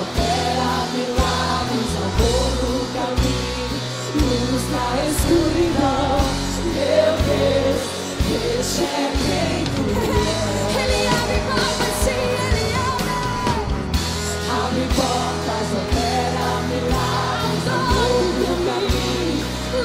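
Contemporary worship band playing live: several singers on microphones over electric and acoustic guitars, bass and keyboard, with a steady beat.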